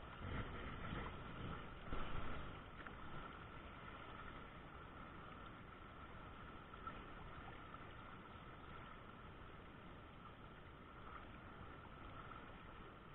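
Steady rushing of a shallow, fast-flowing river over riffles. A few louder bumps and rustles come in the first couple of seconds.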